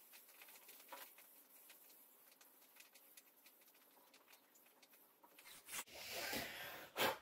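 Faint scratching and light ticks of a wood-burning pen's hot tip dragged over oak. About five and a half seconds in comes a louder rustle, ending in a sharp knock, as the pen and its cable are lifted and handled.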